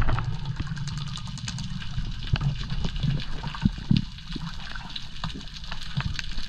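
Underwater sound: a sharp crack right at the start, then a low muffled rumble of moving water with many scattered crackling clicks and a few dull thumps.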